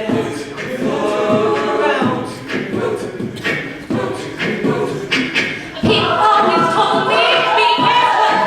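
A cappella group singing in harmony over a vocal-percussion beat; about six seconds in the voices rise and it gets louder.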